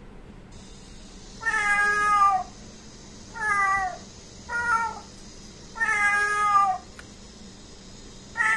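A cat meowing: five drawn-out meows about a second apart, each sliding down in pitch at its end, with the last one starting near the end.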